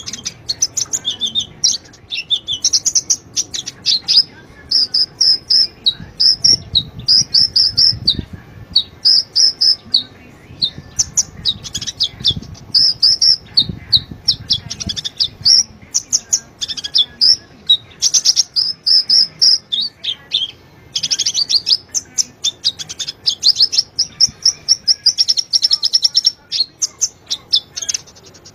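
A konin, the sunbird sold in Indonesia as 'kolibri ninja', singing non-stop in rapid, high-pitched twittering phrases of quick chirps, with barely a break between phrases.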